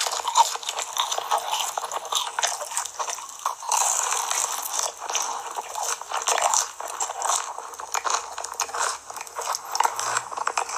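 Chewing and biting cheese pizza, with crunching crust and many small irregular wet clicks.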